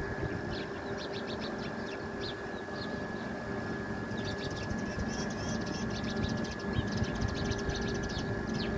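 Small birds chirping, many quick high notes scattered throughout, over a steady machine-like hum.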